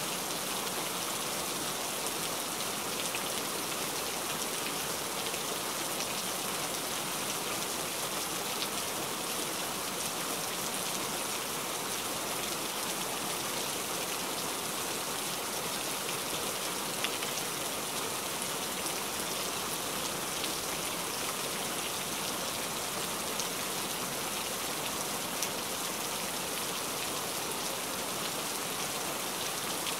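Steady rain falling, a dense even hiss of drops with a few slightly louder single drop taps.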